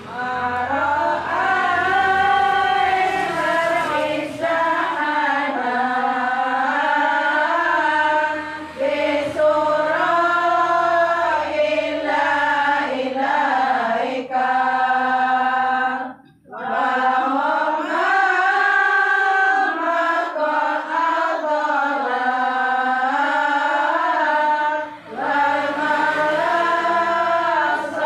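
A group of voices chanting Islamic devotional salawat verses together in a long, sustained melodic line, breaking off briefly about sixteen seconds in.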